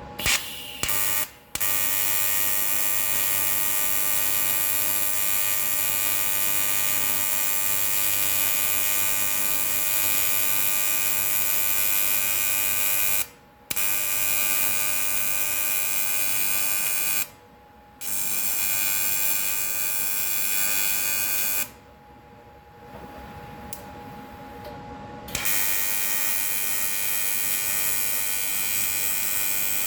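Electric welding arc on aluminium pipe, buzzing steadily. The arc is broken off and struck again several times, with a longer pause a little past the middle.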